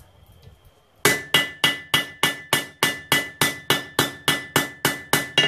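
Hand hammer striking hot steel tong rein on an anvil face, a steady run of about sixteen blows at roughly three a second, each leaving a bright anvil ring. The blows start about a second in and smooth and round off the rein's sharp edges.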